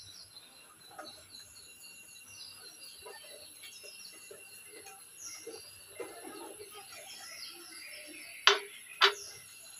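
Quiet outdoor ambience with faint bird chirps and a faint steady insect-like tone, plus soft scattered rustling. Near the end, two short sharp clicks about half a second apart stand out as the loudest sounds.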